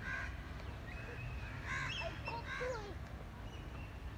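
Crows cawing three times in short harsh calls, with faint children's voices calling out over a low outdoor rumble.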